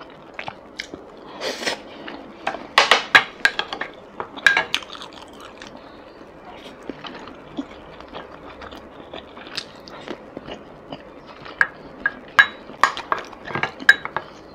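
Close-miked eating sounds: chewing of braised basa fish fat, with small clicks of wooden chopsticks and a wooden spoon against a bowl. The sounds come in two clusters, in the first few seconds and again near the end, with a quieter stretch between.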